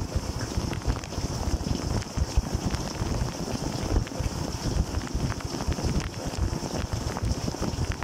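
A running dishwasher's wash water spraying over the racks and splashing onto the camera, heard from inside the machine: a steady churning splash with a heavy low rumble and a hiss above it.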